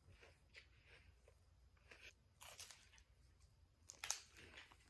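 Faint crunching of a chocolate-covered wafer cookie being bitten and chewed: a few short crisp crunches, the loudest about four seconds in.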